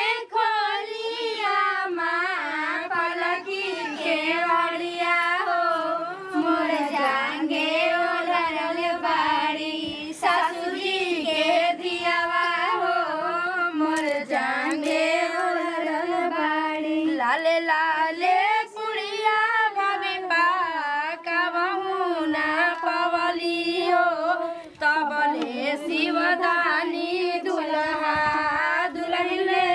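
A woman singing in a high voice, one long continuous wavering melody, typical of the folk songs sung when a bride is welcomed at the groom's home.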